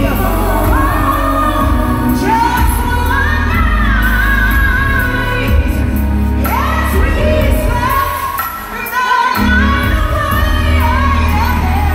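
A female soul singer singing live into a microphone over her band's heavy bass, her voice sliding through long ornamented runs. The bass drops out for about a second near the end, then comes back.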